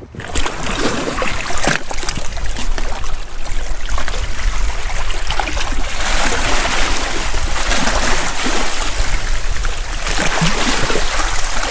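Seawater sloshing and splashing among rocks close to the microphone, with a low rumble underneath.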